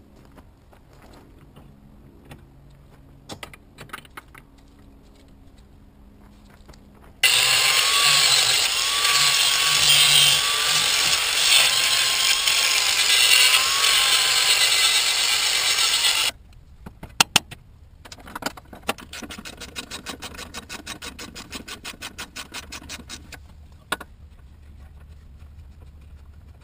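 A power grinder grinding the aluminium E46 control arm's hexagonal bushing mount round. It runs loud and even for about nine seconds, its pitch wavering under load, then stops abruptly. Quiet handling noises come before it, and sharp clicks followed by rapid, regular clicking come after.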